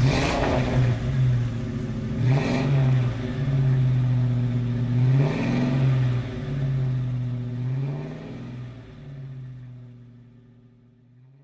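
Car engine revving up and down several times, with three louder rushes of noise about two and a half to three seconds apart. It fades away over the last few seconds.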